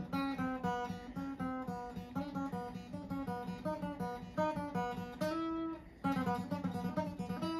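Acoustic guitar playing a fast single-note picked lick in E on the top strings. Quick notes follow one another, with one note held for about a second near five seconds in before the run starts again.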